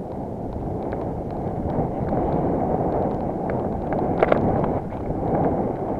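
Wind buffeting a helmet-mounted camera's microphone over the steady rumble of a mountain bike's tyres rolling down a rough, rutted dirt track, with scattered clicks and rattles from the bike and a few sharper knocks about four seconds in.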